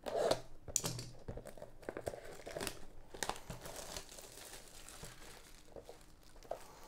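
Plastic shrink-wrap being torn off a cardboard trading card box and crumpled in the hand: irregular crinkling and crackling, loudest at the start.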